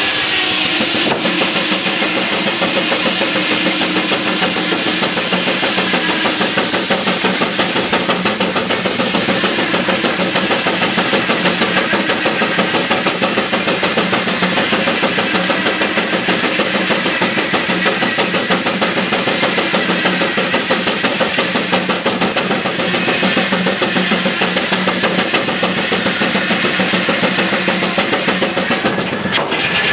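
An engine running steadily under load with a fast, even beat.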